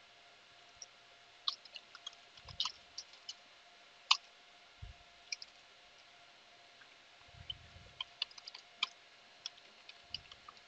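Computer keyboard typing: quiet, irregular keystroke clicks in short runs with pauses between them, over a faint steady hum.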